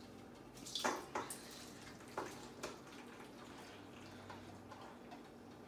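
Cooked ground meat being scraped out of a frying pan into a strainer to drain off the grease: a few short scrapes and knocks against the pan, the loudest about a second in.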